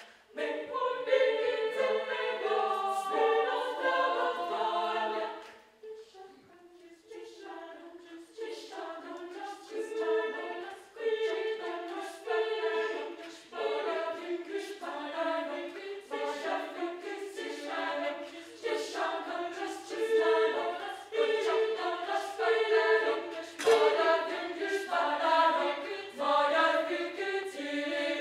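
Children's choir singing a cappella. The singing drops quiet for a moment about six seconds in, then comes back in short, rhythmic repeated chords.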